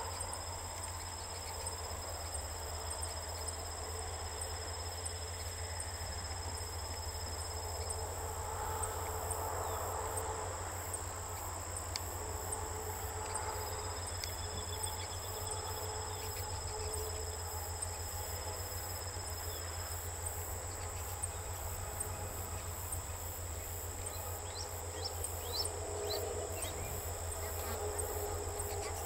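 Field insects trilling steadily in the grass: a continuous high-pitched ringing with fast, even clicking over it.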